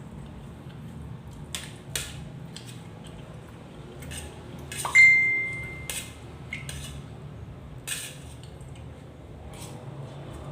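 Cutlery clicking against a plate while eating: a few scattered clinks, with one louder clink about five seconds in that rings briefly.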